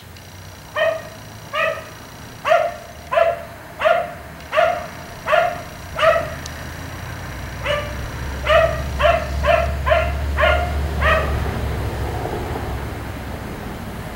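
Black Labrador retriever barking over and over: eight barks about one every 0.7 s, a short pause, then a quicker run of seven more.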